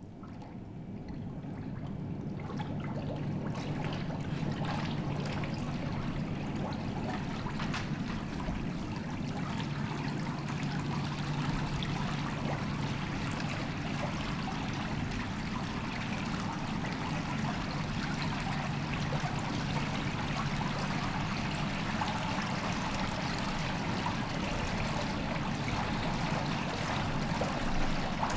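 Water welling up from the centre of a shallow floor basin and spreading across it: a steady trickling, flowing noise that builds over the first few seconds and then holds.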